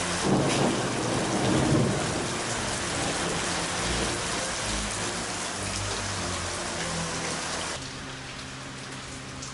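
Hail falling hard on garden plants and soil, a dense steady patter, with a low rumble in the first two seconds; it turns softer near the end.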